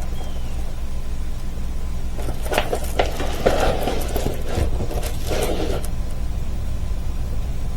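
Steady low hum, with a few short rustles and soft taps from about two and a half to six seconds in, as a large diamond-painting canvas is handled.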